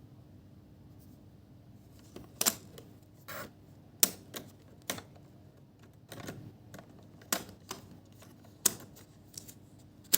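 A series of about ten sharp, irregular clicks and taps from hands handling parts while working on an iMac's memory. They start about two seconds in.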